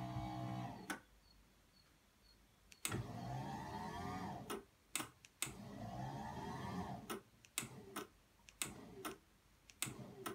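Electric lift-table motor running in short bursts. A steady hum cuts off with a click about a second in, then come two runs of a couple of seconds each whose whine rises in pitch, with a string of sharp clicks between and after them, as the lift is stepped up to line its track up with the fixed track.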